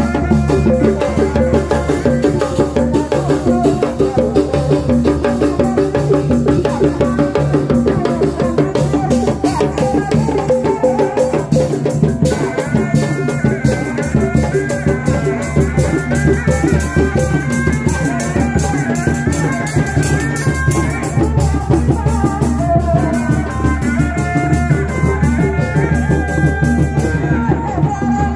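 Live Sundanese reak music: a large frame-mounted drum beaten with padded mallets together with other drums in a dense, steady rhythm, with a high wavering melody line over it.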